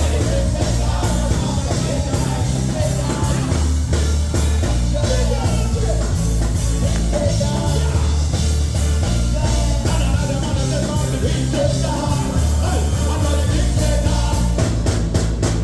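Loud music with a sung vocal over a heavy, pulsing bass line.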